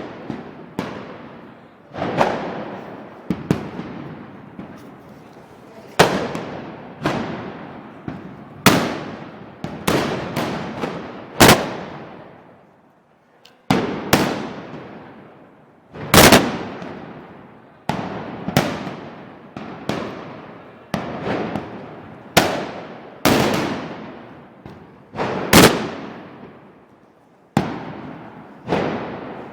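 Percussion-cap black-powder arcabuces fired one after another in an irregular volley, about one shot a second, each a sharp bang followed by a long echoing decay.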